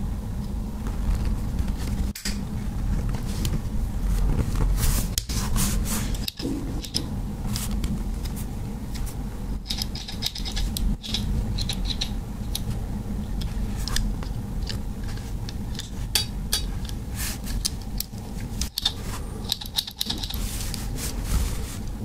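Small metal clicks and scrapes from a Victorinox Compact Swiss Army knife being handled and its tools worked, scattered and irregular, over a steady low rumble.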